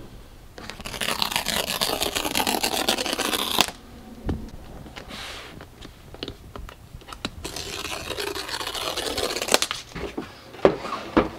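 Paper pull-tab seal strips being torn off a cardboard Apple MacBook Pro box: two long tearing rips, the first stopping sharply, with light handling knocks and rustles between them.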